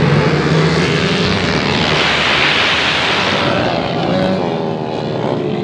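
A pack of 450 cc dirt bikes racing together at high throttle, many engines blending into one loud, continuous drone. From about four seconds in, individual engine notes slide in pitch as bikes go by.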